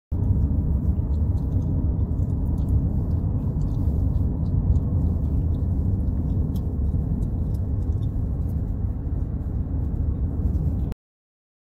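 Steady low rumble of a car driving, heard from inside the cabin, with faint scattered ticks over it; it cuts in and out abruptly.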